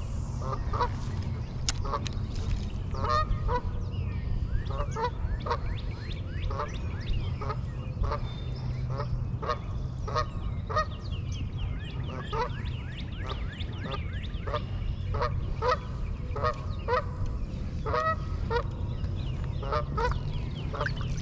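Geese honking over and over, short calls overlapping about once or twice a second, over a steady low rumble.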